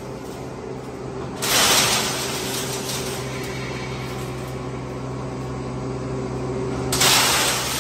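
Large belt-driven sawdust machine, powered by an electric motor, running with a steady hum, with loud bursts of crushing and rattling twice, about a second and a half in and near the end, as coconut shells are fed in and smashed.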